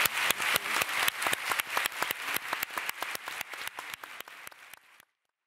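Audience applauding, the claps growing steadily fainter until they cut off near the end.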